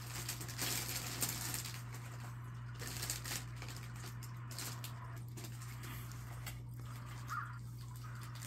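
Faint steady low hum with a few soft bursts of hissy rustle in the first few seconds.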